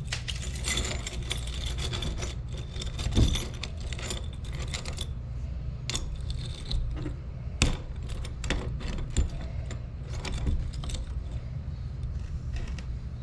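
Small pieces of brass scrap, keys and outlet covers, clinking and jangling against each other in irregular clusters of sharp clicks, over a steady low hum.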